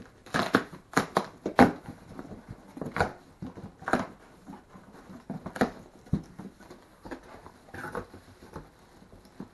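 Cardboard shipping box being torn open by hand: packing tape and flaps ripping and rustling in irregular sharp rips and crackles, loudest in the first two seconds.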